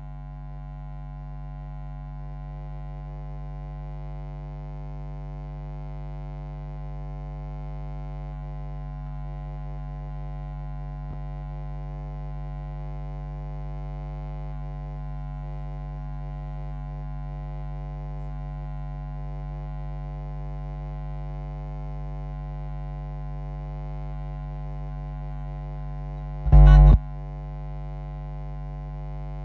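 Steady electrical hum and buzz from the sound system, with no music or voice over it. It is broken once near the end by a brief loud thump.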